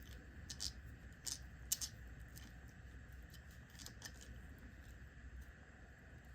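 Faint, scattered small clicks and taps of the Craftsman 3/8 ratchet's metal parts being handled while it is greased, about six in the first four seconds. The loudest comes near the two-second mark, over a steady low background hum.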